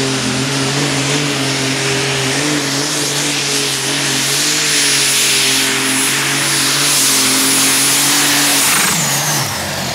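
Modified pulling tractor's engine running hard under load as it pulls the sled down the track, with a steady high whine over it. About a second before the end the whine falls away and the engine note drops as it comes off full power.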